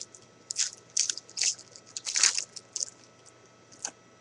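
A trading card pack's wrapper crinkling and tearing open in about six short, crisp bursts.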